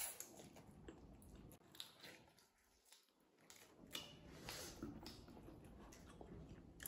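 Faint chewing and lip-smacking of people eating chicken wings and pizza, with scattered small wet clicks and smacks.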